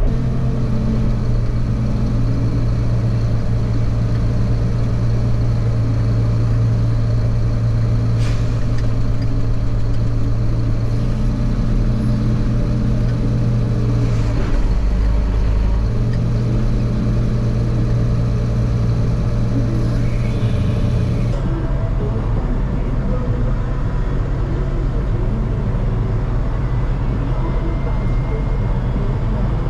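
Engine of a vehicle hauling a loaded grain trailer, running steadily at road speed with a low drone; the engine note shifts about two-thirds of the way through.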